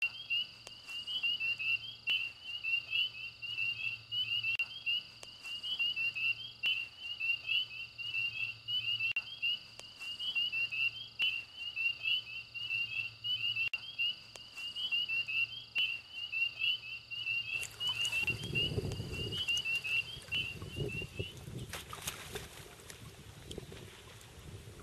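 High-pitched animal chirping repeated rapidly and evenly, like a calling chorus, which stops a few seconds before the end. It gives way to low rumbling noise with a few knocks.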